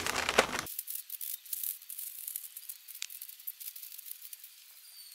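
Rustling handling noise that cuts off abruptly under a second in, followed by faint, scattered high crackling and ticks.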